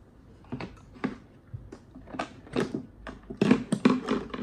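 Hand tools clicking and knocking against a moulded plastic tool case as they are handled and lifted from their slots, screwdrivers among them. The taps come more often and louder in the second half.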